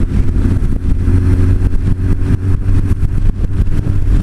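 Honda CB1300's inline-four engine running at a steady cruise, with wind flapping on the microphone.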